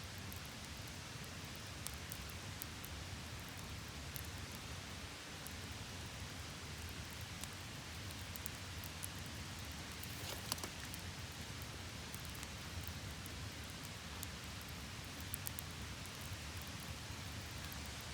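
Campfire crackling: a steady hiss with scattered small pops and snaps, a few louder ones about ten seconds in.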